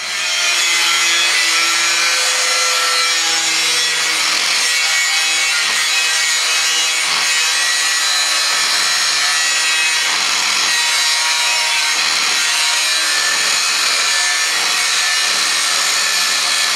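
Angle grinder with a cut-off disc cutting a curve through sheet metal, a steady loud grinding with a faint motor whine underneath that wavers slightly in pitch.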